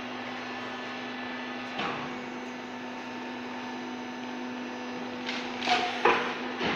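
Steady electric hum of a hydraulic carton baling press's motor and pump running. There is one knock about two seconds in, and a run of louder knocks and clatter near the end as cardboard and the press's metal lid are handled.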